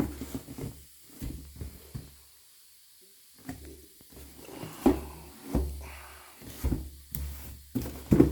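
Handling noises from unboxing a Stanley Quick Flip vacuum bottle: irregular knocks, taps and rustles of the bottle and its packaging being handled, with a brief quiet pause a little over two seconds in.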